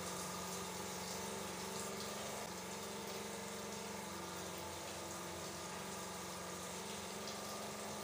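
Water running steadily from a tap or shower, an even hiss with a low steady hum beneath it.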